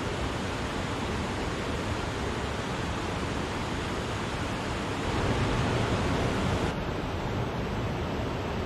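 Wachirathan waterfall: a steady rush of falling water, swelling a little louder for a moment past the middle.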